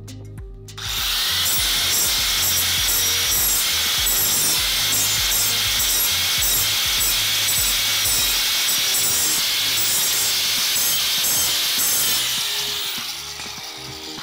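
Modified angle grinder cutting into aluminum extrusion: it starts about a second in, runs steadily for about eleven seconds, then winds down near the end.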